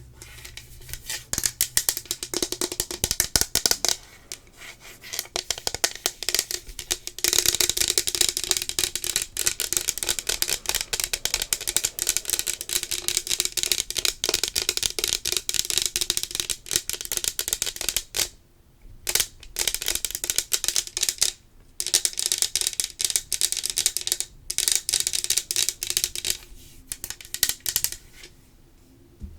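Fast, dense ASMR clicking right up against the microphone, loud and continuous in quick runs broken by several brief pauses.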